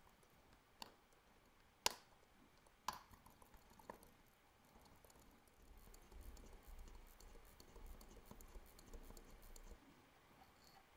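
Four small, sharp clicks about a second apart as the ETA 2892-A2 watch movement and its steel movement holder are handled, then a few seconds of soft rubbing and shuffling as the holder is turned and moved on the bench.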